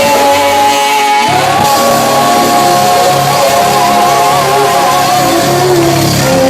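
Gospel group singing with instrumental backing: long, wavering held notes from several voices over a steady bass line.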